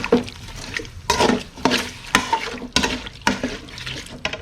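Chopped pork and herbs being stir-fried: a spatula scrapes and turns the meat in a hot pot in about eight strokes, over a sizzle.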